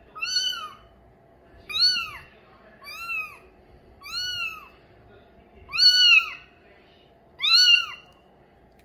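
Young male mink Bengal kitten meowing six times in a row, about a second and a half apart. Each meow is high-pitched and arches up then down in pitch.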